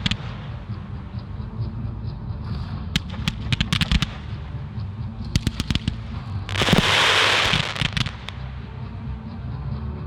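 Firework display: sharp bangs of bursting shells, scattered and in quick clusters, with a loud hiss lasting a little over a second about six and a half seconds in.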